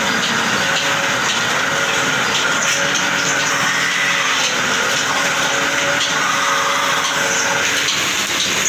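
Metal-spinning lathe running, turning an aluminium pot (handa) on a former while a long hand tool presses and scrapes against the metal: a steady whir and scraping noise with faint high ringing tones.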